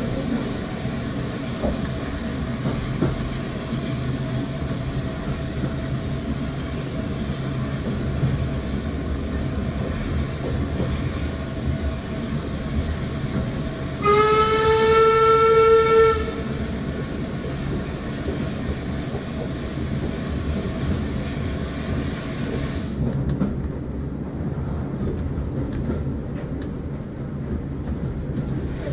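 Heritage train running along the line, heard from inside the passenger carriage as a steady rumble of wheels on rails. About halfway through, the train sounds one long single-tone blast on its whistle lasting about two seconds, its pitch rising slightly as it starts; this is the loudest sound. Later the hiss in the rumble drops off and the running sound becomes quieter.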